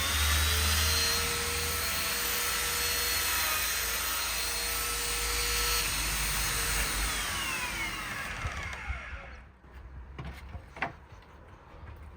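An electric power tool motor running at full speed with a steady whine, then winding down in pitch over about two seconds and stopping. A few light knocks follow near the end.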